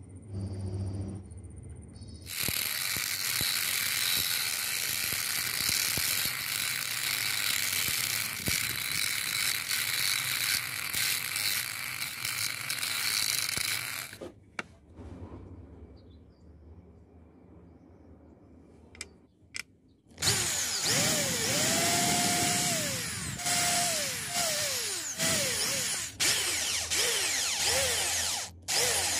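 Power-tool work on white PVC sheet: a loud steady noise for about twelve seconds, then after a quieter pause a cordless drill boring into a small PVC piece in repeated bursts, its motor speeding up and slowing down as the trigger is worked.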